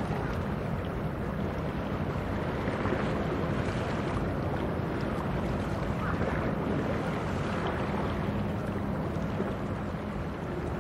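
Steady low hum of a cargo ship's diesel engine, under a constant rush of wind and water.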